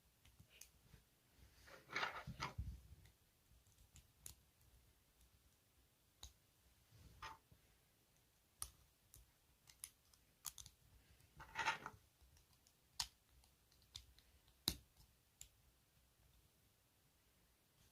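Scattered light clicks and short clattering rattles of plastic LEGO parts being handled, with brief busier clusters about two, seven and twelve seconds in.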